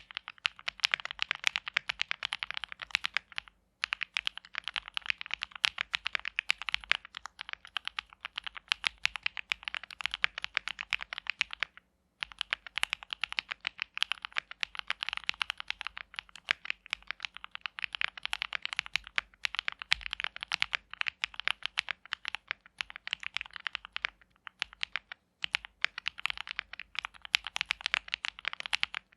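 Continuous fast typing on a custom mechanical keyboard: an aluminum-plate Jelly Evolv with lubed KTT Strawberry V2 linear switches, Owlab stabilizers and GMK keycaps, giving rapid, sharp keystroke clacks. There are short pauses in the typing about 3.5, 12 and 25 seconds in.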